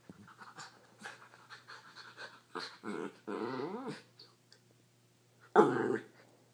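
Schnauzer growling in play while sparring with a cat: light scuffling, then a few short growls, the loudest about five and a half seconds in.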